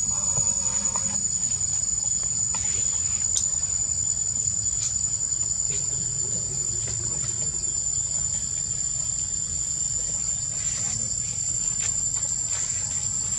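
Insects shrilling in a steady, high, even tone that does not let up, with a few faint clicks over it.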